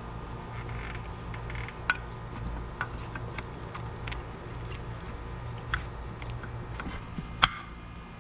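Scattered sharp metallic clicks and taps, about six in all with the loudest near the end, as new brake pads are fitted into a Porsche carbon-ceramic brake caliper, over a steady low hum.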